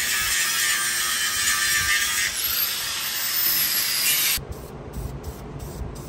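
A power tool running with a loud, steady hiss that stops abruptly about four seconds in, with music underneath.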